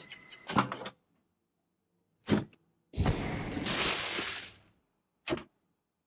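Sharp clicks and clunks from a Dyson V8 cordless stick vacuum being handled, with a rush of noise lasting under two seconds about halfway through.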